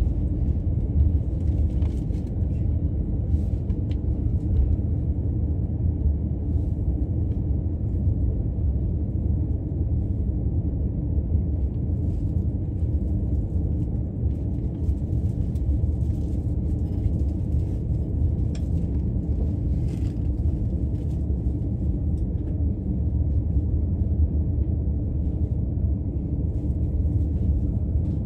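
Steady low rumble of a commuter train running at speed, heard from inside the carriage: wheels on rail and running gear, with a few faint clicks.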